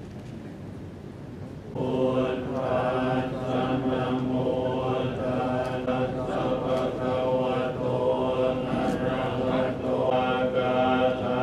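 Thai Buddhist monks chanting in Pali in unison, on a nearly steady pitch, starting suddenly about two seconds in.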